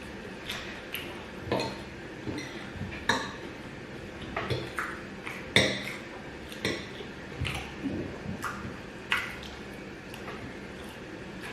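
Cutlery clinking and scraping against a plate of gari and beans during eating: irregular sharp knocks, more than a dozen, the loudest about halfway through.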